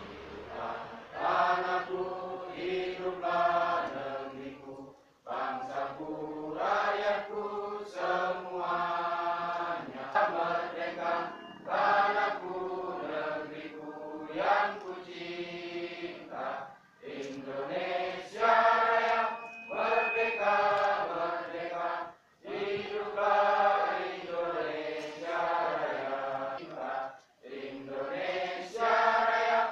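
A crowd of people singing a song together in unison, in long held phrases with short breaks between them.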